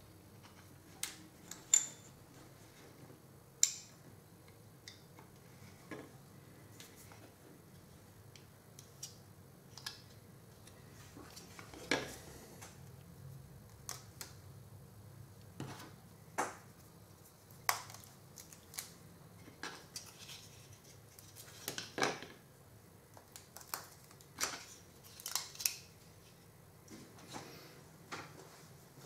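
Plastic parts of a scale model aircraft kit being handled and pressed together, with hobby tools set down: irregular sharp clicks and taps with soft rustling between them, the loudest a couple of seconds in and again about two-thirds through.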